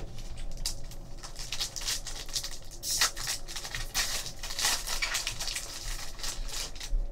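Foil wrapper of a 2013-14 Panini Contenders hockey card pack being torn open and crinkled by hand, with the cards inside rustling and sliding as they come out. The crackling is loudest around the middle.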